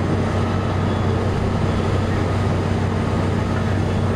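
A large engine running steadily, a constant low hum under a rushing noise.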